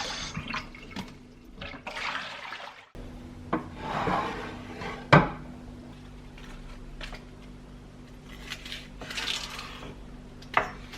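Kitchen handling sounds: dishes and utensils clinking and being set down, with scattered rustles and a sharp knock about five seconds in.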